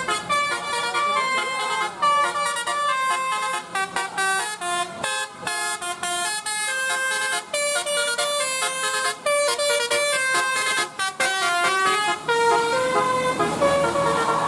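Bus telolet horn playing a melody: a quick run of short, steady horn notes stepping up and down in pitch, with brief breaks between many of them.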